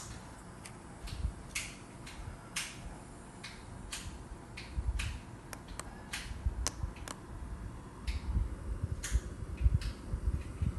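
Plastic push-buttons on handheld gate remote controls clicking as they are pressed, about fifteen sharp clicks at uneven intervals. A low rumble of handling noise joins them from about halfway through.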